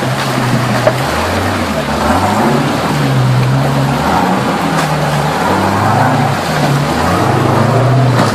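Rock crawler buggy's engine revving up and down over and over as it climbs over boulders, with running and splashing creek water beneath.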